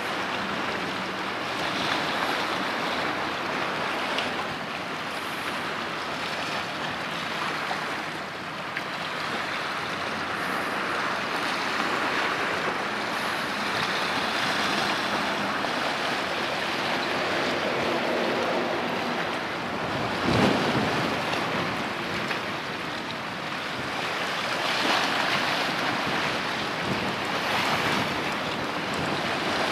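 Rushing water and sea wind: the bow wave and wash of an Aso-class coast guard patrol vessel cutting through choppy water, with wind buffeting the microphone and a brief gust thump about twenty seconds in.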